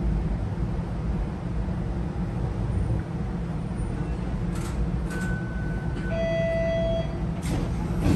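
TTC Flexity Outlook streetcar running slowly, heard from inside the car: a steady low rumble with a few sharp clicks. About two-thirds of the way through, a two-note electronic chime sounds, a higher tone and then a lower one.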